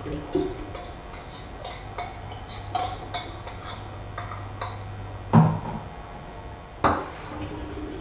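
Metal spoon clinking and scraping against a stainless-steel bowl as soaked yeast is scraped out, a string of light clinks. Then come two louder clanks of steel cookware about a second and a half apart.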